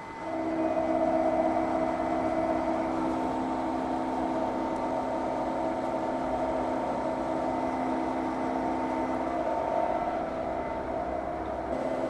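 Milling machine cutting an aluminum plate on its final 0.20 mm finishing pass: a steady mechanical hum made of several constant tones, coming up just after the start and holding even throughout.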